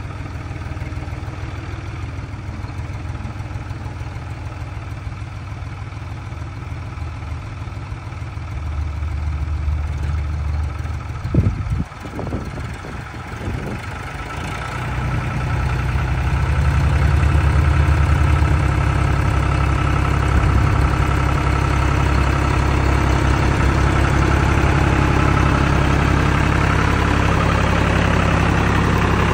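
John Deere 5300 tractor's three-cylinder diesel engine running steadily, louder from about halfway through as the tractor comes up close. A brief sharp thump a little before halfway.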